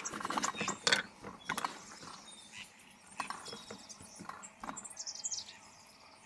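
Hands pulling apart the sticky, fibrous flesh of a ripe jackfruit, making scattered small clicks and tearing sounds. The clicks are loudest in the first second or so and fainter after that.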